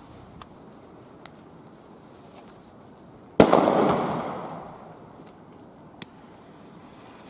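A single Funke B-class firecracker (Böller) going off with one sharp bang about three and a half seconds in, followed by a noisy tail that dies away over about a second and a half. A few small, sharp clicks come before and after it.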